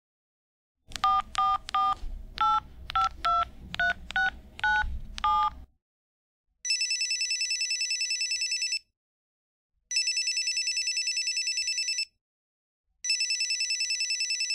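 Touch-tone telephone keypad dialing about ten digits as short two-pitch beeps, then a telephone ringing with three high, trilling rings of about two seconds each, a second apart.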